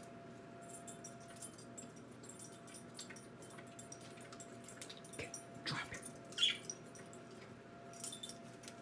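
Budgerigars chirping softly in short, scattered high notes, with a louder sliding cry about five to six and a half seconds in.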